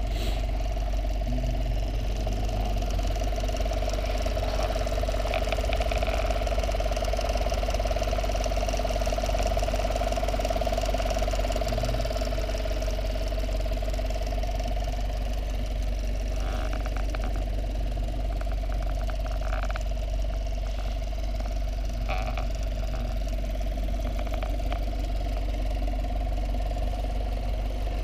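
A motor running steadily: a low drone with a constant mid-pitched hum held above it.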